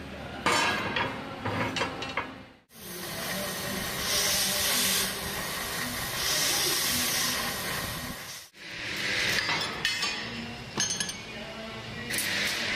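A cutting torch hissing steadily as it cuts through steel plate, filling the middle of the clip. Loose steel pieces clink and knock at the start and again near the end.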